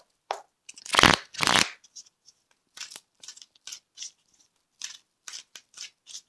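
Tarot cards shuffled by hand: a run of short papery rustles and snaps, several a second, with two louder bursts about a second in.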